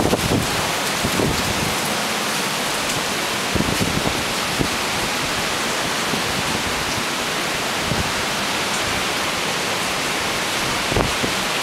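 Steady rain falling and splashing on wet surfaces, an even hiss throughout, with a few soft low thumps.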